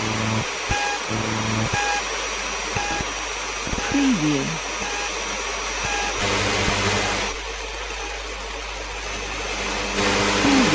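Analogue FM radio being tuned across the band: a steady hiss of static with a low hum, short repeated beeps in the first few seconds, and a whistle that swoops down in pitch about four seconds in. The static changes in character as the dial moves, around six and again ten seconds in.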